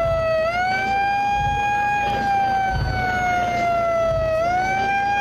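A siren wailing in a high steady tone that sags slowly in pitch, then sweeps quickly back up, twice.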